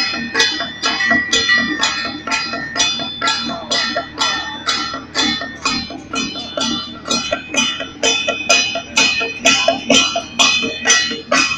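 Procession troupe's bronze gongs struck with wooden beaters in a steady beat, about three strikes a second, each strike ringing on.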